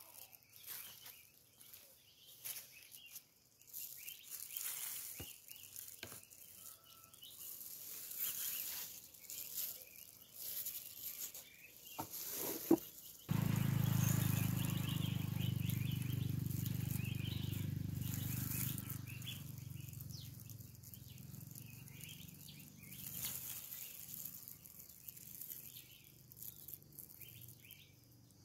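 Birds chirping with scattered light clicks, then, about halfway through, a sudden steady low hum of a honeybee colony buzzing in an opened wooden hive, fading slowly toward the end.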